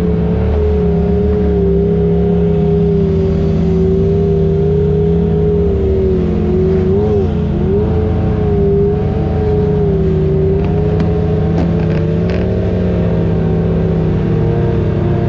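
Side-by-side UTV engine running at fairly steady low revs, heard from inside the cab while crawling up a rocky dirt trail. The pitch wavers slightly and dips briefly about halfway through, and a few short knocks come near the end.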